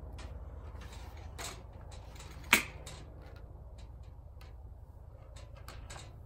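Sharp clicks and knocks of fittings being handled on an antenna pole, the loudest about two and a half seconds in and a cluster of small ones near the end, over a steady low hum.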